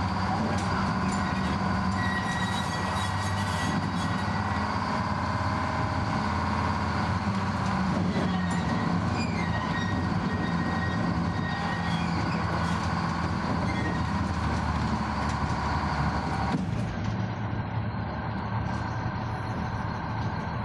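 Old electric tram running on its rails: a steady motor hum with wheel and rail noise and a thin squeal at times.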